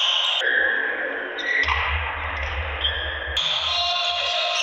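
Background music with a deep bass, cutting in about half a second in and stopping abruptly about three and a half seconds in, with sports-hall noise before and after it.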